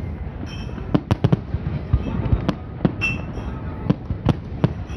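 Fireworks display: aerial shells bursting in a rapid, irregular string of sharp bangs and cracks, about a dozen in five seconds, with a quick cluster of bangs about a second in.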